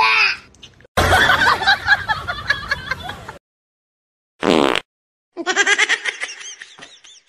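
A person laughing in quick repeated giggles over the last two seconds. Before that come about two seconds of mixed noise with voices, and a brief cry a little past the middle.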